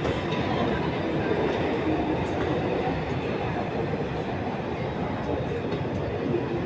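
Santiago Metro AS-02 train heard from inside the car while it runs along the line: a steady rumble of wheels and running gear.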